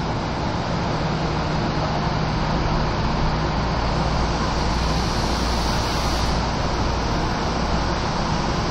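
Steady hum and hiss inside a Shōnan Monorail suspended car standing at a station with its doors open: the stopped car's onboard equipment running. A faint low tone in the hum fades out about halfway through.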